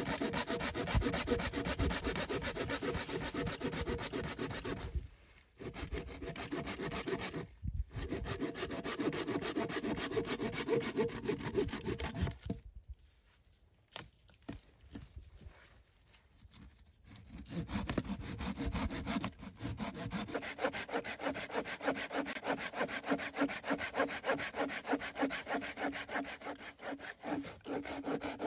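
Hand saw cutting through wood in quick back-and-forth strokes. It pauses briefly twice early on, stops for several seconds about halfway, and then starts sawing again.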